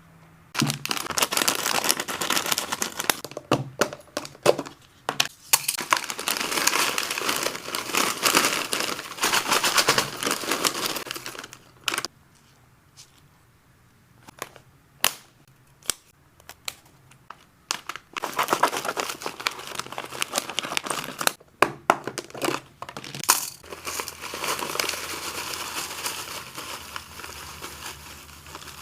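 Plastic snack packaging crinkling and rustling as hamster snacks are handled and packed into storage, in long stretches of dense crinkling, with quieter gaps of scattered clicks and taps in the middle and around two-thirds of the way through.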